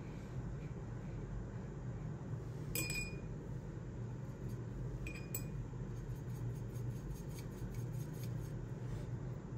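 A paintbrush clinking against a glass water cup: one sharp, ringing clink about three seconds in and two more about five seconds in, over a steady low room hum.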